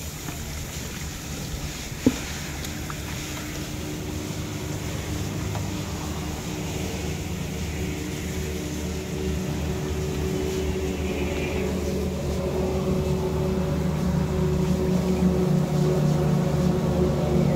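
A motor running steadily: a low hum with a few steady tones, slowly getting louder toward the end. One sharp click about two seconds in.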